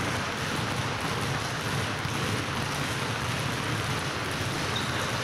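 Many basketballs dribbled at once on a hardwood gym floor, the overlapping bounces and the hall's echo blending into a steady wash of sound.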